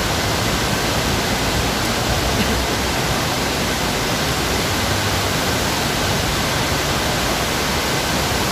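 Steady rushing of a large waterfall cascading off a bridge into the canal, an even, unbroken roar of falling water.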